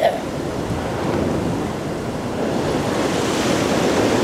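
Sea waves washing against a concrete seawall, with wind rumbling on the microphone; the wash swells about three seconds in. A brief click right at the start.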